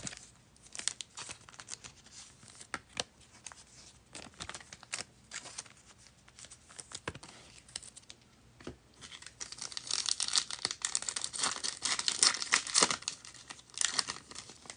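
Light handling rustles and clicks, then from about two-thirds of the way in a foil trading-card pack wrapper being torn open and crinkled.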